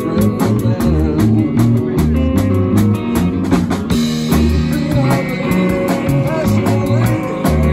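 Live rock band playing a cover song: electric guitar, electric bass and a drum kit keeping a steady beat.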